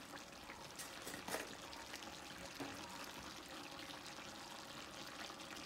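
Chicken pieces simmering in their own released juices in an open kadai: a steady, quiet bubbling sizzle, with a couple of light clicks about a second in.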